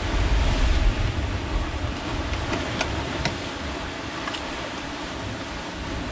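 Wind buffeting the microphone, heaviest in the first second, over a steady hiss of sea surf, with a few light clicks around the middle.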